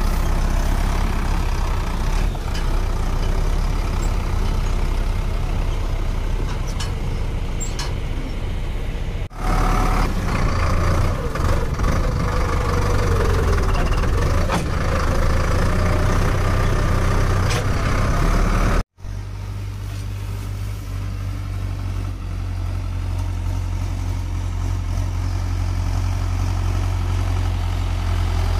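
Sonalika Tiger tractor's diesel engine running steadily under load as it drives through deep paddy-field mud. The sound breaks off sharply twice, changing character after each break.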